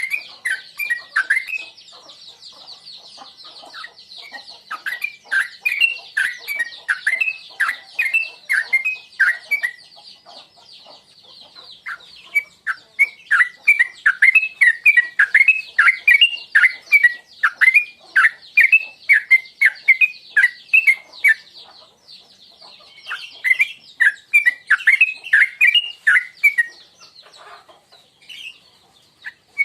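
Sooty-headed bulbul (trucuk) singing its repeated 'tuklik tuklik' phrase: bouts of quick falling notes, about two a second, broken by pauses of a second or two. A steady high hiss runs behind it.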